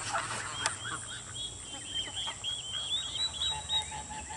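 A flock of white domestic geese and ducks calling: a long string of high, repeated peeping calls, with a run of lower, short notes near the end.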